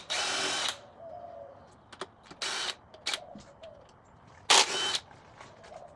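Three short bursts of harsh tool noise on the engine's rod cap bolts, the loudest near the end, with pigeons cooing faintly between them.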